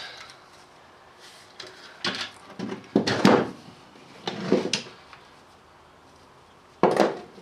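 Metal clunks and clatters of valve-train parts being handled while stripping a 24-valve Cummins cylinder head: the valve spring compressor released and lifted off, springs and retainers set down. Four separate knocks, the loudest about three seconds in, with short quiet gaps between.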